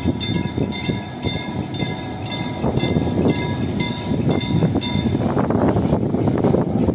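Level-crossing warning bell ringing in a steady rhythm of a little under two strokes a second, over the rumble of a VR diesel locomotive crossing the road. The bell stops about five seconds in, and the locomotive's rumble grows louder toward the end.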